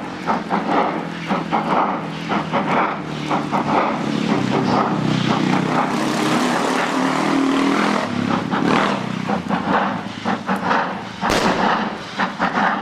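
DR class 50 steam locomotive working hard uphill, its two-cylinder exhaust beating with an uneven, limping rhythm caused by a damaged slide valve. For a few seconds in the middle the beats blur into a steady rush of steam, and near the end there is a single sharp crack.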